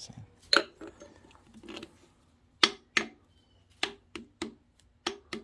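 A string of about nine irregular sharp knocks and metallic clicks, some in quick pairs, as the main bearing caps of a Ford 5.0 V8 are tapped and worked loose from the engine block.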